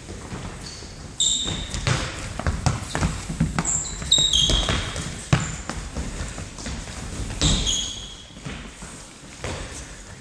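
Indoor football on a wooden sports-hall floor: a ball being kicked and bouncing, with footsteps and a few short high squeaks of sneakers on the floor, echoing in the hall.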